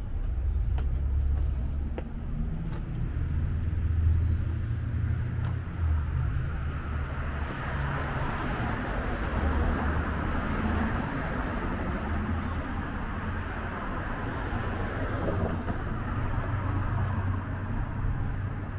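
City street traffic: a steady low rumble, with a vehicle's tyre and engine noise swelling as it passes about halfway through, then fading.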